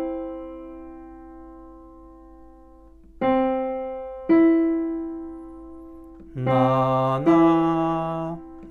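Digital piano sounding a major third, C and E: the two notes together ring out and fade, then C and then E are struck one after the other. Over the last couple of seconds a man's voice sings the two pitches back, low note then high, on the neutral syllable "na" as in an ear-training drill.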